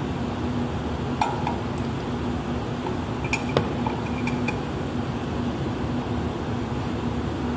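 Steady air-handling hum with a low tone, and a few small metallic clicks and clinks from handling a hand pressure calibration pump and gauge fittings: one about a second in, then a short cluster between three and four and a half seconds in.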